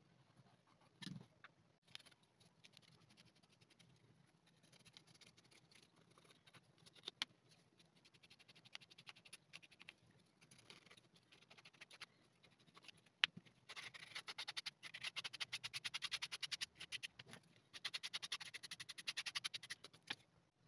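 Sandpaper rubbing along the cut edge of a leather wallet panel, smoothing the edge. Light, scattered scratching at first, then two spells of fast back-and-forth sanding strokes in the second half, with one sharp click just before them.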